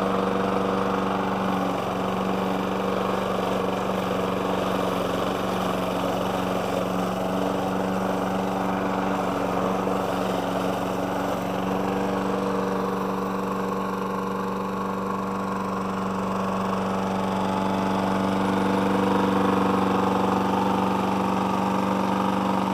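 Briggs & Stratton Quantum 4.5 hp single-cylinder engine on a walk-behind rotary lawn mower running steadily at constant speed. It sounds healthy, freshly serviced with new oil and a new spark plug.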